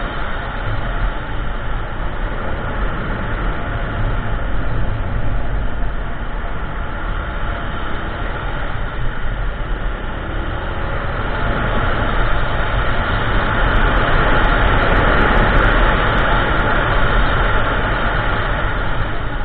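Kymco Xciting 400i maxi-scooter, a single-cylinder four-stroke, riding at speed: a steady engine drone under loud wind rush on the microphone. The rush swells for several seconds about two-thirds of the way through.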